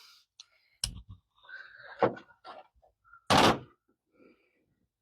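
A few separate knocks and clunks, the loudest and longest a little over three seconds in.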